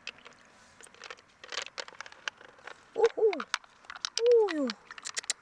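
Small, sharp clicks as hard pearl beads are picked out of a mussel shell and knock against the shell and each other, with two drawn-out calls sliding down in pitch about three and four seconds in, the loudest sounds.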